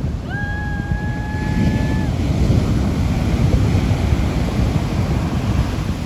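Ocean surf breaking and washing up a sandy beach, with wind buffeting the microphone. Near the start a single high, steady note is held for about two seconds over it.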